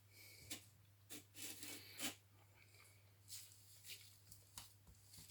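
Faint rustling and light clicks of small parts and packaging being handled, over a steady low electrical hum.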